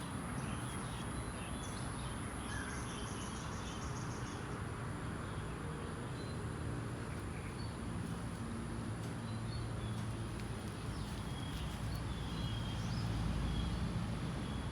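Outdoor background: a steady low hum and hiss with faint bird chirps, and a thin high whine that stops about three seconds in.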